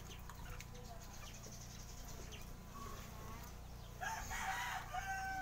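A rooster crowing once near the end, a rough call that ends in a held note.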